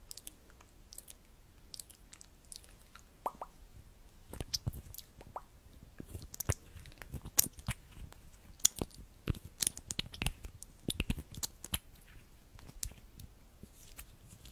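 Close-miked hands handling a plastic lipstick tube: irregular small clicks, taps and soft crackles. They are sparse at first and busier through the middle, with soft low thumps among them.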